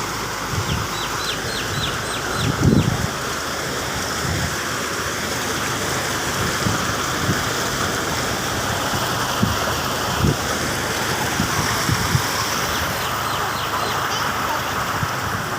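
Steady rushing outdoor ambience, with a few low thumps. A bird gives a quick run of about seven high notes about a second in, and a fainter run near the end.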